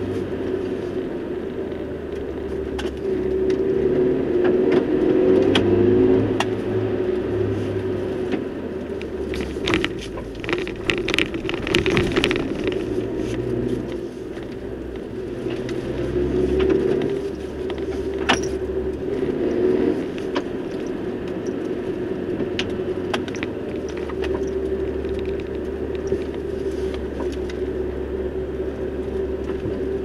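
A vehicle driving along an unsurfaced forest road: a steady engine hum with scattered clicks and rattles from the bumpy track, thickest about ten to twelve seconds in.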